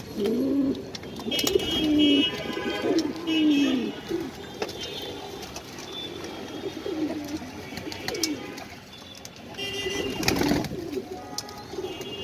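Domestic pigeons cooing: a run of low coos in the first few seconds, then fainter scattered coos. A short loud rustle comes about ten seconds in.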